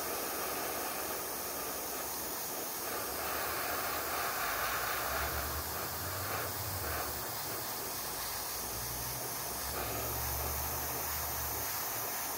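Airbrush spraying paint: a steady hiss of air. A low hum comes and goes underneath.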